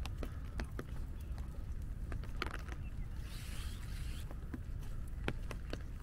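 Raindrops tapping irregularly on an umbrella, with a steady low rumble underneath and a brief rustle a little past halfway.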